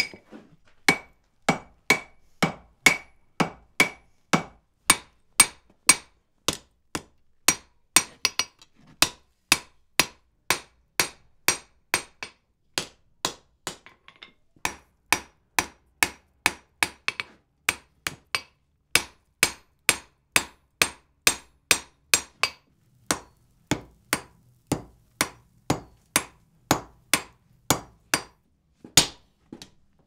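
Hammer blows on hot wrought iron at the anvil, a steady rhythm of about two strikes a second with a short pause about halfway through and another near the end, as a section of a door bolt is shouldered in.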